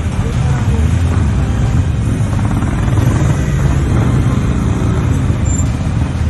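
A group of motorcycles riding past, their engines running loud and steady, with engine pitch rising and falling a few times as bikes go by.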